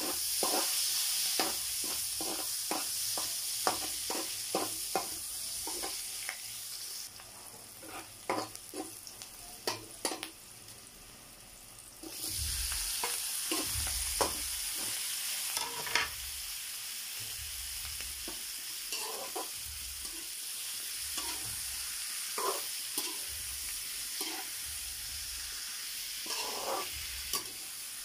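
Oil sizzling in an aluminium wok as garlic, onion and then whole shrimp are sautéed, with a metal spatula repeatedly scraping and tapping against the pan. The sizzle fades for a few seconds midway, then comes back louder about twelve seconds in, once the shrimp are in the oil.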